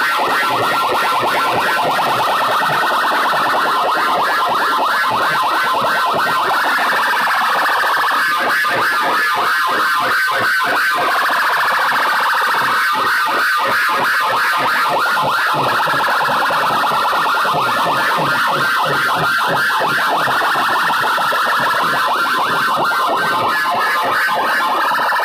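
Very loud electronic competition track blasting from a large stack of horn loudspeakers: a shrill wavering tone like a siren over a fast pulsing beat, without a break.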